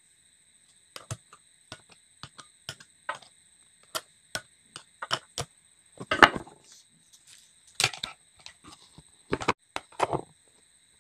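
Irregular clicks and knocks of a plastic electrical extension board and a screwdriver being handled, with a cluster of louder knocks near the end as the board is turned over.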